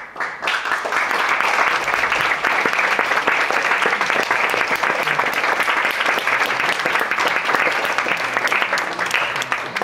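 Audience applause: dense clapping that starts abruptly, holds steady, and begins to die away near the end.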